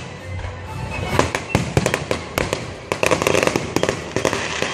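Fireworks going off in rapid succession: many sharp bangs and pops, thickening into dense crackling about three seconds in.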